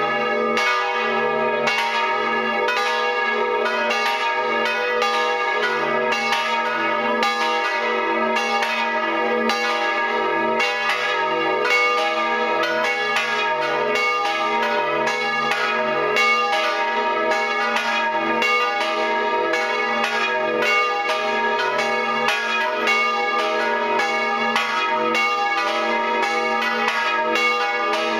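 Full peal of three swinging church bells tuned D♯, G♯ and B, heard up close in the belfry. The bells were cast in 1508, 1925 and 1952. Their clapper strikes overlap continuously, each stroke leaving a sustained ringing hum.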